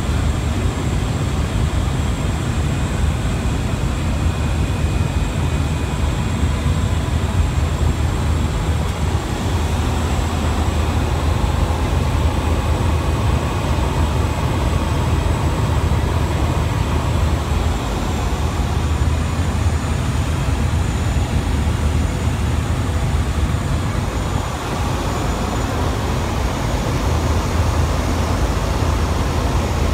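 Cabin noise of a small high-wing aircraft in flight: the engine and propeller make a steady low drone under the rush of air, with a thin high whine on top.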